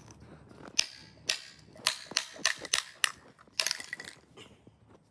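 A dry dog bone handled on concrete: a quick, uneven run of sharp clicks and knocks over about three seconds.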